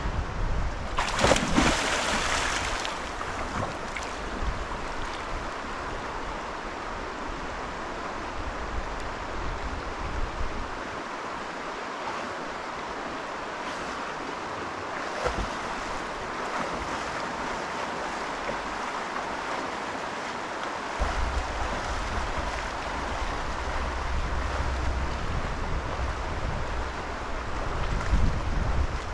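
Water of a river pool rippling and splashing, with a brief louder rush of noise about a second in. Wind rumbles on the microphone through the first ten seconds and again from about twenty seconds in.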